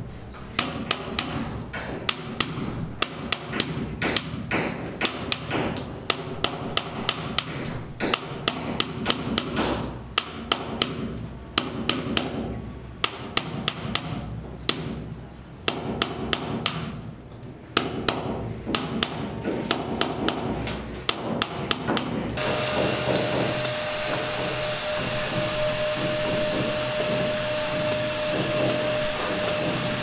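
Hammer blows in quick runs of several strikes, about three or four a second, with short pauses between runs; each blow has a bright ringing clink. From about 22 s on, a handheld electric paint sprayer runs with a steady whining hum.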